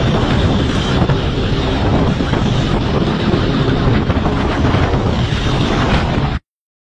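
Wind buffeting the microphone of a motorcycle riding at speed, over the steady noise of the engine and tyres. The sound cuts out abruptly near the end.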